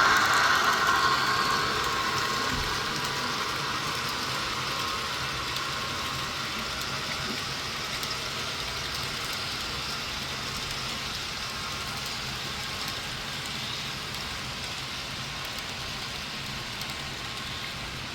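A model train running along the layout track, loudest at the start and then fading gradually as it moves away, over a faint steady low hum.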